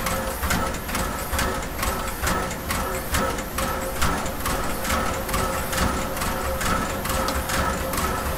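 Norfolk & Western J-class 4-8-4 No. 611 steam locomotive working steam, its exhaust chuffing at a steady beat of about three a second over a low rumble.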